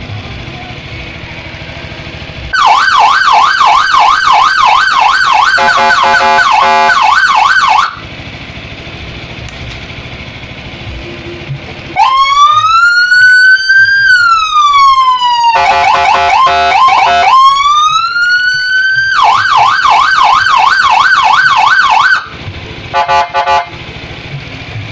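Electronic police-escort siren played through a 15-watt TOA horn speaker driven by a 50-watt TDA amplifier, switching between tones: a fast yelp about three cycles a second from about two and a half seconds in, a slow rising-and-falling wail near the middle, a short stepped tone, the fast yelp again, and a few quick blips near the end.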